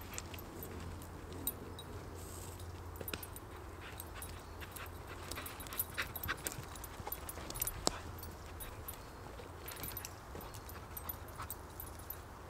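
Dry twigs and thin dead branches cracking, snapping and rustling as a bundle of brushwood is gathered and handled by hand. The sharpest snaps come about six and eight seconds in, over a low steady hum.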